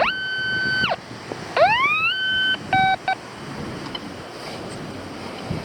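Quest X10 metal detector sounding its target tones over a buried target, a good signal. A tone is held for about a second, then a rising tone levels off and holds, then two short beeps come near three seconds in, with wind and surf behind.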